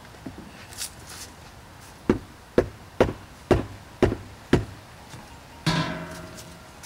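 Wooden mash paddle knocked about six times in quick succession, about twice a second, against the rim of a plastic cooler mash tun to shake off the wet grain. Near the end the paddle is laid across a stainless steel brew kettle with a single clank that rings on briefly.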